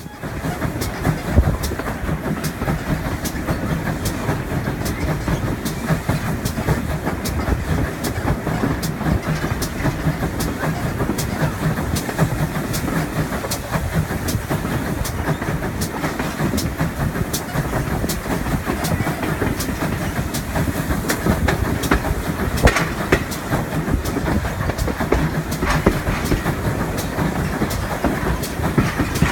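Steam locomotive L92, an ex-GWR 57xx pannier tank, pulling its train up a climb, heard from the leading coach. A steady rumble runs under a regular clatter of wheels over rail joints.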